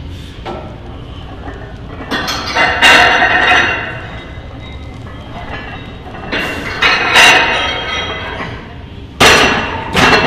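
Gym weight equipment clanking: steel plates and the machine's metal parts rattle and clink in three loud bursts a few seconds apart, as a heavily loaded set is worked.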